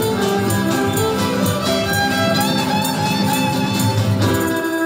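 Music with a fiddle carrying the melody over a string accompaniment; the tune moves into a new phrase near the end.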